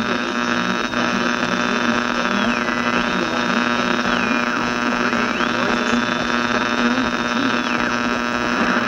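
Steady electrical hum and buzz with noise from an old, worn recording. Over it a high whistling tone slides down and back up three times.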